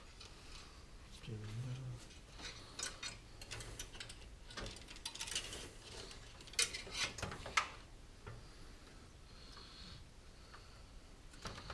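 Small clicks and plastic clatter of PC cable connectors being handled and pushed onto the motherboard's pin headers, with a few sharper clicks about two-thirds of the way through.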